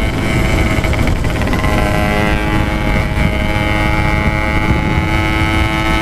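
Yamaha RX-King's two-stroke single-cylinder engine running steadily through its packing-power aftermarket exhaust while cruising, over a low wind rumble on the microphone.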